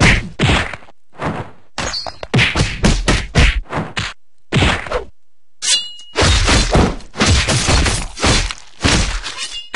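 Rapid string of cartoon fight hit sound effects: punches and kicks landing as whacks and thuds in quick succession, with a short pause about halfway through.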